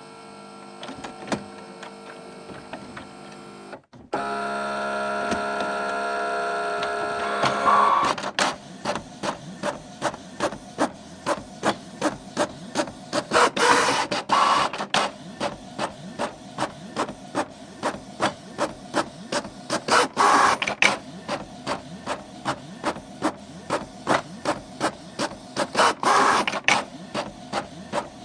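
Canon MG5150 inkjet all-in-one printer making copies. A steady motor whine, briefly cutting out and returning louder, gives way about eight seconds in to printing: a regular clacking a little under twice a second as the print head travels. About every six seconds there is a louder whirring burst as the next sheet feeds.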